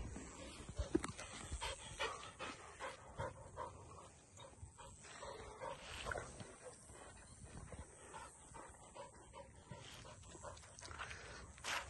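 A dog panting faintly and rapidly, with scuffing steps on a dirt track.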